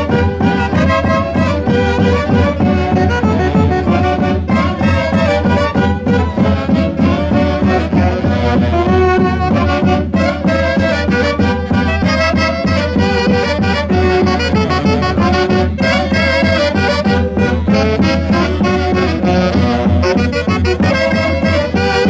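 Saxophone section of an Andean orquesta típica playing a lively tune in harmony over a steady low beat.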